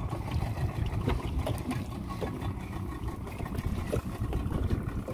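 Low, uneven rumble of a small open boat on choppy sea: water lapping against the hull and wind on the microphone, with a few faint splashes.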